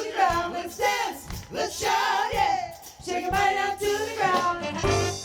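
Live soul-funk band with singers, over a steady drum beat of about one low hit a second.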